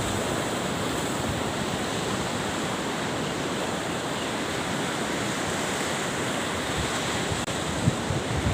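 Sea surf washing steadily, with some wind.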